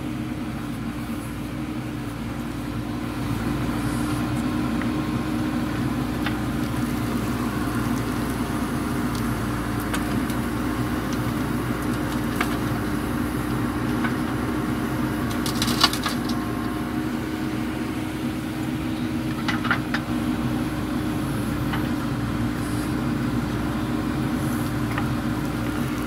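JCB 3DX backhoe loader's diesel engine running steadily under load as the backhoe digs and swings soil, with a few sharp knocks from the bucket and stones.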